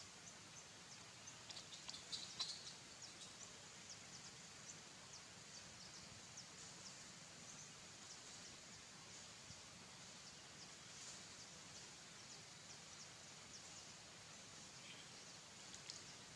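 Faint outdoor ambience: a steady hiss with many short, high ticks and chirps, thickest about two seconds in.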